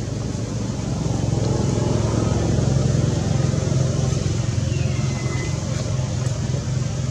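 A motor engine running steadily, a low even hum, with a faint brief high falling squeak about five seconds in.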